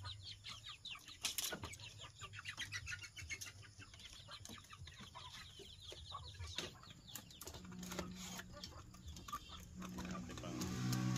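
Domestic chickens clucking as they feed, with many short calls in quick succession. Near the end a low steady hum comes in and becomes the loudest sound.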